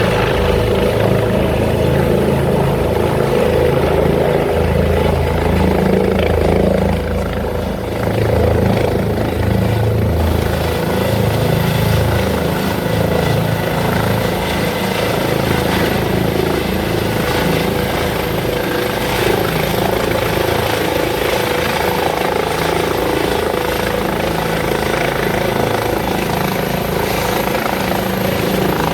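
Helicopter running loud and steady: a low pulsing rotor beat with a thin, steady high whine above it.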